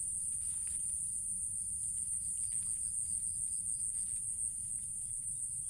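Insects chirring in the garden: a steady high-pitched trill, with a second, fainter pulsing trill joining for about a second and a half in the middle.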